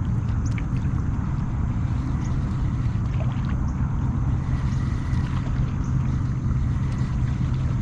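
Steady low rumble of a fishing kayak under way on the bayou, with a few faint short high chirps over it.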